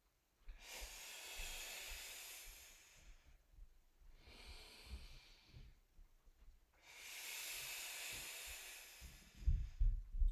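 A woman breathing audibly through her mouth while doing abdominal curl-ups with a dumbbell: three long breaths, the middle one fainter, paced with the lifts. Low thuds of movement on the mat come near the end.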